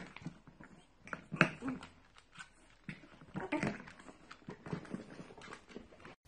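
Pug puppy making short whimpering vocal sounds in a few bursts, with light clicks of its claws on a wooden floor.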